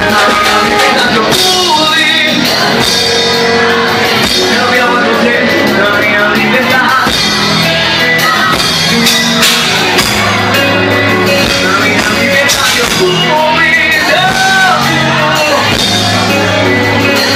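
A live band playing an upbeat gospel song with axé and rock feel, loud and amplified, with a lead voice singing over drums, bass and guitar, some shouted vocals among them.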